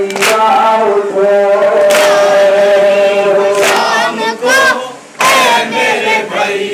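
Men chanting an alwidai (farewell) noha in chorus. The chant is punctuated by loud hand strikes on the chest (matam) in unison, about every one and a half seconds.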